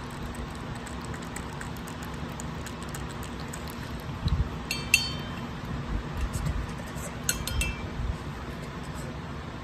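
Syringe-feeding of a newborn kitten: quiet handling noises with soft bumps, and a brief high squeak about five seconds in and another a couple of seconds later, over a steady low hum.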